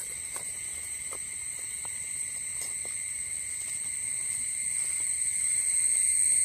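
Steady high-pitched insect chorus, growing louder toward the end, with a few faint light knocks in the first few seconds.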